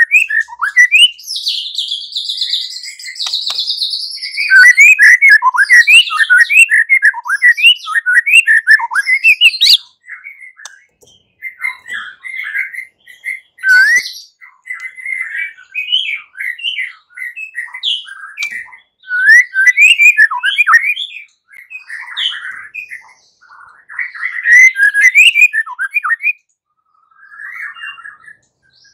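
White-rumped shama (murai batu) singing a rapid, varied song of whistled and chattering phrases. The song is continuous for the first ten seconds, with a higher-pitched passage a couple of seconds in, then comes in shorter phrases separated by brief pauses.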